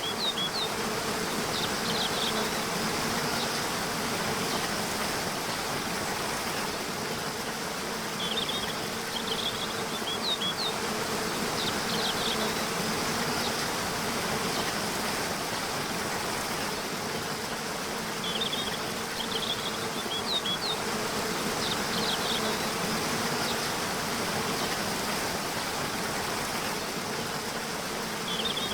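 Waterfall rushing steadily, with a low steady buzz under it. Clusters of short, high chirping bird calls come back every nine seconds or so.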